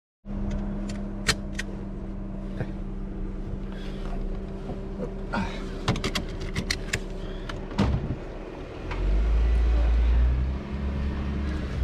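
2015 Jeep Wrangler Rubicon running at low speed on a rough dirt trail, with a steady low engine hum and scattered clicks and knocks from the body and gear over bumps. A heavier low rumble swells for a second or so near the end.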